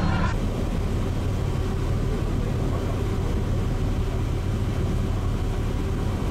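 Steady low drone and rushing noise of a large car ferry under way at sea, heard from its open deck.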